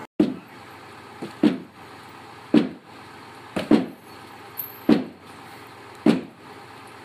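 Hammer blows on a timber-frame wall panel as it is knocked into place, six heavy thuds at a steady pace of about one every 1.2 seconds, some with a lighter tap just before.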